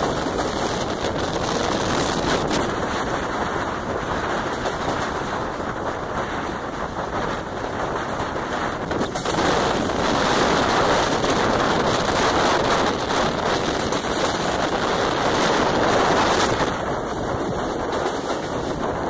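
Passenger train running at speed, heard from a coach window: a steady rush of rail and wheel noise with rapid clatter and wind buffeting the microphone. It grows louder about halfway through for several seconds.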